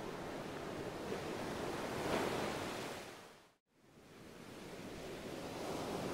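Steady rushing noise that swells about two seconds in, fades out to silence about three and a half seconds in, and rises back to the same level.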